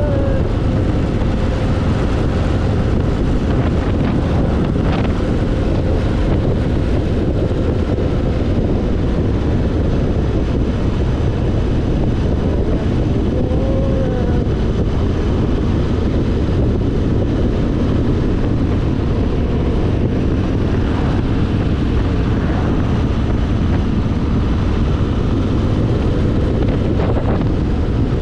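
Motorcycle riding at a steady cruising speed: the engine running evenly under a heavy rush of wind on the microphone.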